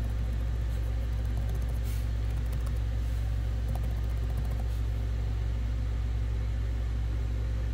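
Steady low rumble, an even band of noise below about 120 Hz with a faint hiss above it, unchanging throughout.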